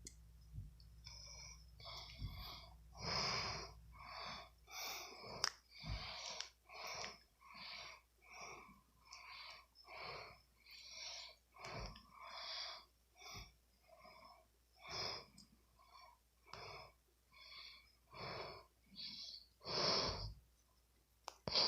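Faint, rapid, wheezy breathing: an even run of short, rasping breaths, about two a second.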